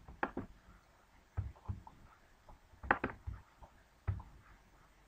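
Computer mouse clicking: a handful of short, sharp clicks, some in quick pairs, spaced about a second apart.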